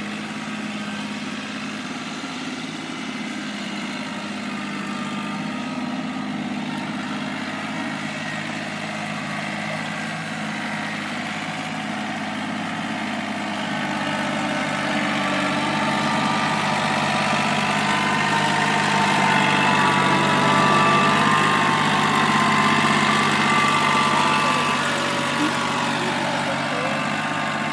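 John Deere 4210 compact tractor's three-cylinder diesel engine running steadily under load while pulling a spring-tooth cultivator through the soil. It grows louder about halfway through and eases off slightly near the end.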